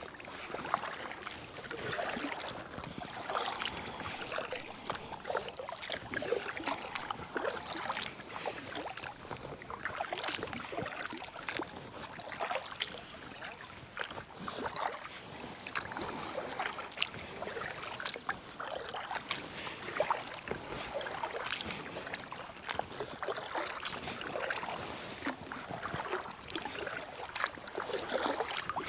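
Kayak paddle strokes in water: the blade dipping and splashing with water dripping and trickling, as a series of irregular small splashes over a steady watery hiss.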